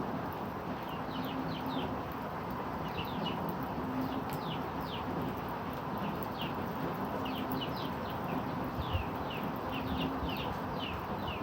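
Steady hiss of falling rain, with small birds calling over it in quick runs of short, falling chirps that come and go.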